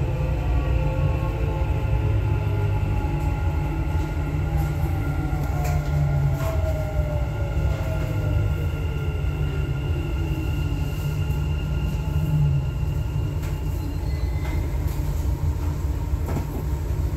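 Dubai Metro driverless train heard from inside the car, running on the elevated track with a steady low rumble and high motor whine. Partway through, the whine falls in pitch as the train slows toward the next station.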